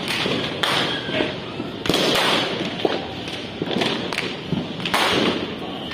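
New Year's Eve firecrackers and fireworks going off around the neighbourhood: sharp bangs about half a second, two seconds and five seconds in, over a continuous din.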